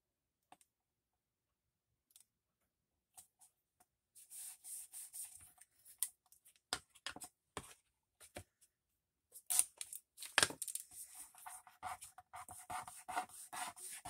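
Washi tape being pulled off its roll and torn, crackling and scratching with many sharp clicks, starting about four seconds in, with two louder taps a little past the middle and rubbing near the end.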